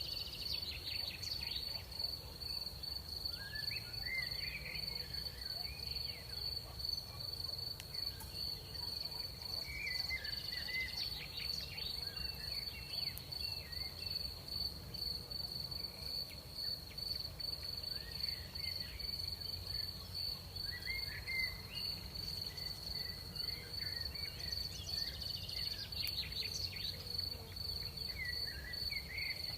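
Crickets trilling at night: one unbroken high, steady trill, with clusters of short, lower chirps that come and go every few seconds over a low, steady rumble.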